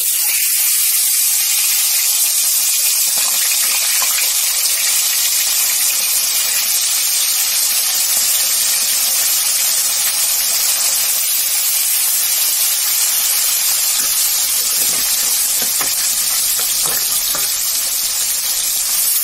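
Pieces of rohu fish frying in hot oil in a kadai: a steady, loud sizzle. A few light taps near the end.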